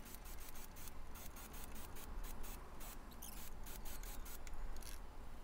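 Workshop audio fast-forwarded about twenty times: hand-tool work at the bench becomes a rapid, irregular run of short clicks and high squeaky chirps.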